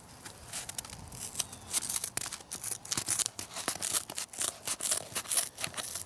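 Leatherman Rebar multitool scissors snipping through two layers of corrugated cardboard: a run of short crunching snips, several a second. The cut is forced and hard going; the blades need strong-arming through the double thickness.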